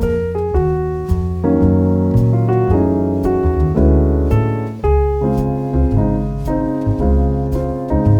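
Background piano music: piano chords and melody over a deep bass line.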